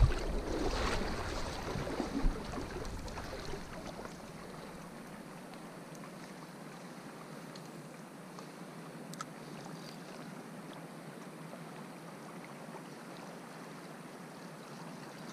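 Steady, faint rush of a small creek's flowing water. A low rumble on the microphone in the first few seconds fades out by about four seconds in.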